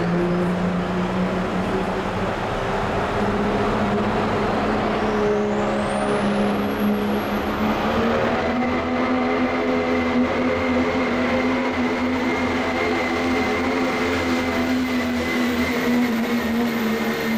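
Dodge Ram Cummins diesel pickup running hard under load as it pulls a weight-transfer sled, its engine note edging up in pitch. A high whistle climbs steeply about five seconds in and then holds.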